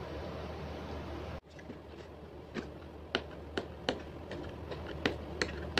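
A steady hiss for about a second and a half, then, after a sudden break, a string of sharp, irregular clicks and taps: fingernails picking and tapping at the edge of the packaging of a GoPro head strap accessory box.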